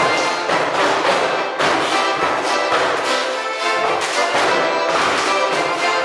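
Orchestral instrumental music playing at a steady level, with a regular beat of about two strokes a second.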